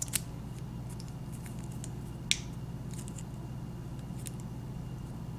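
Light clicks and crinkles of a thin aluminium-can shim being fitted around a padlock's steel shackle, with one sharper click a little after two seconds in, over a steady low hum.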